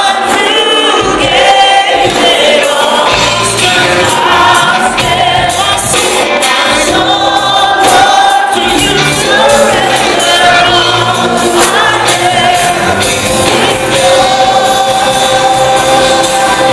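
Live Christian worship music: several singers on microphones singing together over an amplified band. Low bass notes come in about three seconds in.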